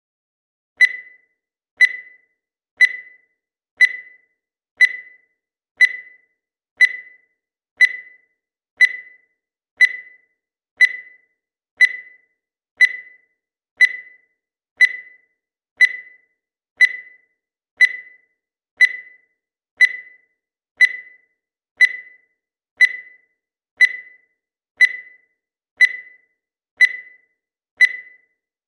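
Digital timer beeping once every second: a short, high, single-pitched beep with a sharp start that fades away quickly, repeated evenly.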